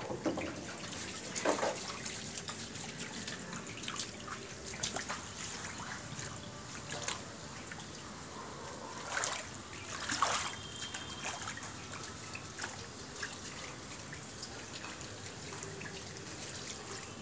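Water trickling steadily over a wet tiled floor, with a few brief splashes or taps, the clearest about nine and ten seconds in.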